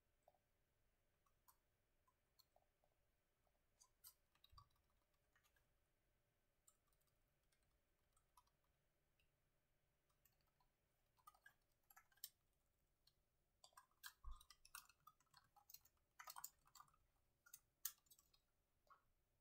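Faint typing on a laptop keyboard: scattered key clicks at first, quickening into fast runs of keystrokes in the second half. A couple of soft low thuds are heard among them.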